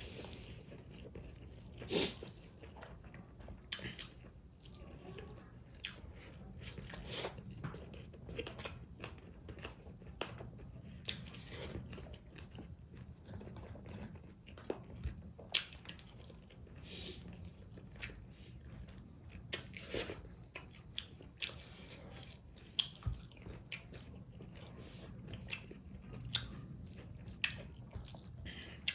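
A person chewing and biting food close to the microphone, with wet smacking and irregular crisp crunches, a few sharper ones standing out.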